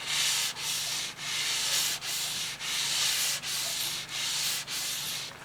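Wet sanding car paint by hand with 400-grit sandpaper: back-and-forth strokes about one and a half a second, each a gritty hiss. The sanding is breaking down the ridged edges left by masking tape around a clear coat repair.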